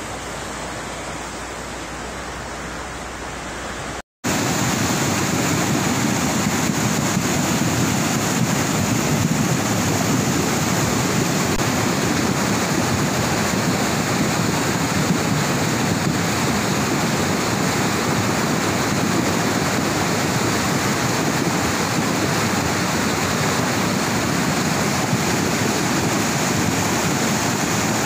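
Muddy flash-flood torrent rushing down a river channel: a steady roar of water. The sound drops out for a moment about four seconds in and comes back louder.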